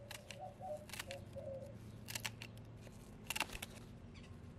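Scissors snipping through a hen's primary flight feathers: about seven sharp cuts, some coming in quick pairs or threes.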